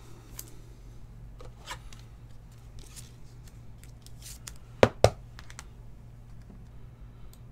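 Trading cards and a thin plastic card sleeve being handled: light crinkling and rustling, with two sharp taps close together about five seconds in.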